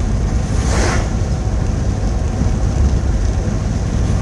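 Steady low rumble of a moving vehicle's engine and road noise, heard from inside the cab. About a second in comes a short breathy puff as the pipe smoke is blown out.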